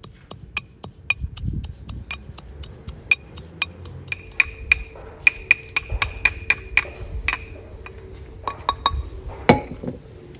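Pestle pounding fennel seeds in a mortar: about four sharp, ringing strikes a second, with one louder knock near the end.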